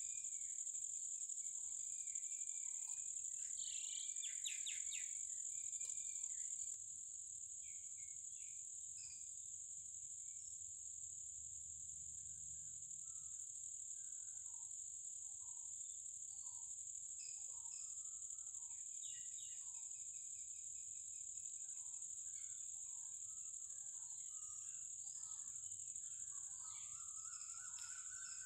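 Steady high-pitched drone of insects, with scattered bird chirps throughout and a longer bird call near the end.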